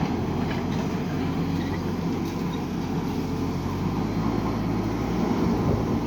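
Diesel engine of a JCB 3DX backhoe loader running steadily under load while it works.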